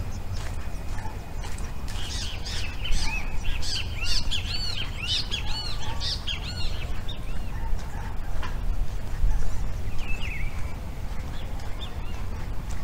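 Birds chirping: many short, arched chirps overlapping as a chattering burst for several seconds, then a few scattered calls, over a steady low rumble.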